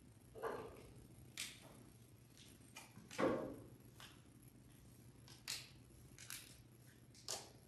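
Scattered clinks and knocks of communion vessels being handled and set down on the altar, about six in all, the loudest a duller knock about three seconds in, over a low steady hum.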